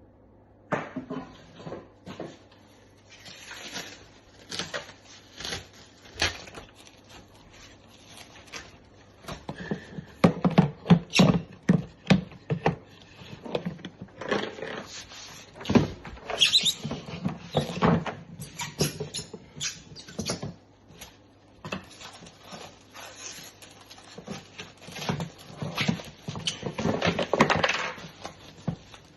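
Packaging being handled: an irregular run of knocks, clicks and rustling as the box and case of a cordless drill kit are opened and their contents moved about, with a short squeak about halfway through.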